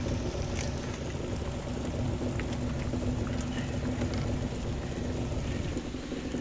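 Boat motor running steadily, a low rumble with a constant hum, with a few faint clicks over it.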